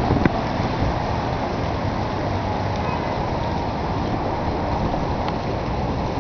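Steady outdoor city ambience: an even, low rumble of background noise, with a brief tick just after the start.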